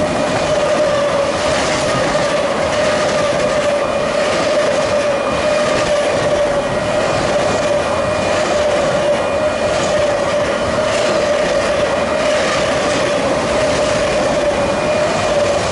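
Autorack freight cars rolling past close by: a steady loud rumble and rattle of steel wheels on rail, with irregular clacks over rail joints. A steady high whine runs through it.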